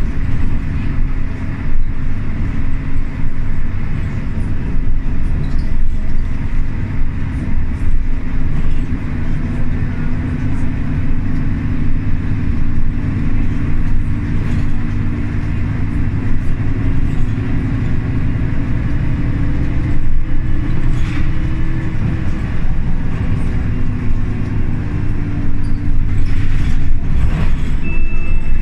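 Inside a Jelcz M121MB/3 city bus under way: the diesel engine running and road rumble, the engine's pitch rising and falling with the bus's speed. A short beep sounds near the end.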